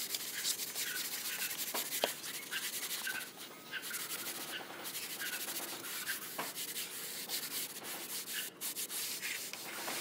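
A hand float scraping back and forth along a freshly plastered cement mortar moulding, smoothing the render in repeated rough rubbing strokes.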